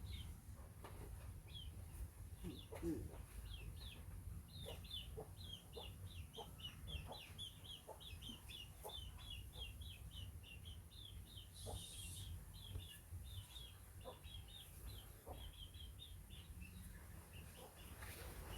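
Chickens calling, mostly a fast run of short, high peeps like chicks, with a few lower calls mixed in.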